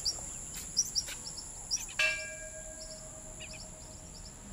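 A small bronze temple bell struck once about two seconds in, ringing on with several clear tones that slowly fade, over short bird chirps.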